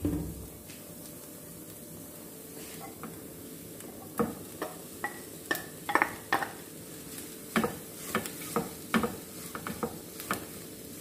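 Wooden spatula stirring flaked fish into onion masala in a nonstick frying pan, with a faint sizzle. From about four seconds in, the spatula scrapes and knocks against the pan in a run of sharp clicks.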